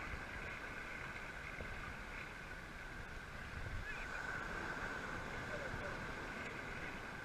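Surf washing around the legs in the shallows, with wind rumbling on the microphone and a faint steady high-pitched whine throughout.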